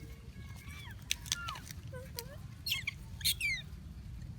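Short, high squeaks and chirps falling in pitch, a few scattered through the middle and a louder cluster about three seconds in, over a steady low hum.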